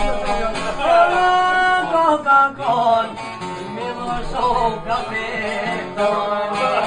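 A man singing an Albanian folk song over plucked çifteli, long-necked two-stringed lutes, with drawn-out, bending sung notes.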